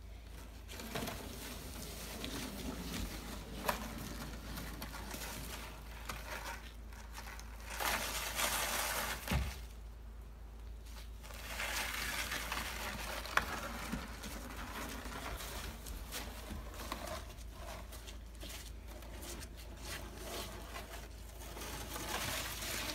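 Plastic snow shovel scraping and pushing wet slush across wooden decking in irregular strokes, with a few sharp knocks.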